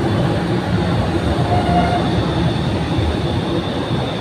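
Light rail train cars passing close alongside a station platform at speed: a steady, loud running noise of wheels on the rails and moving car bodies.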